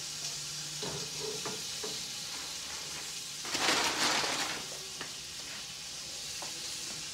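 Steak sizzling on a gas grill with the lid closed: a steady hiss with small crackles, swelling into a louder burst of hissing about three and a half seconds in for about a second.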